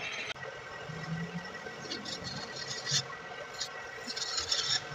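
Hand scraper drawn along the flat of a steel crosscut saw blade, scraping grime and rust off it. It is heard in two spells of gritty scraping, about two seconds in and again near the end.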